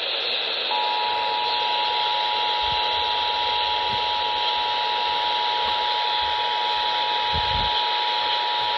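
Emergency Alert System two-tone attention signal (853 and 960 Hz sounded together) received off-air on AM radio: a steady dual tone over constant radio static hiss, starting under a second in. It announces a Required Monthly Test of the Colorado alert system.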